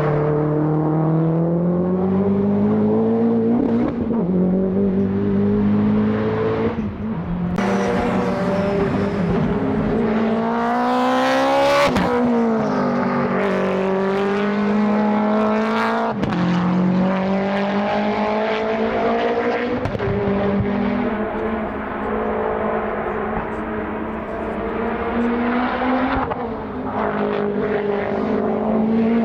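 Race car engine at full throttle, its note climbing and then dropping sharply at each gear change about every four seconds.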